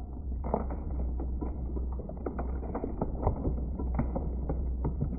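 Industrial twin-shaft shredder's cutter discs turning and tearing up a stretchy rubber-and-gel toy. A steady low motor hum runs under many irregular clicks as the blades bite into it.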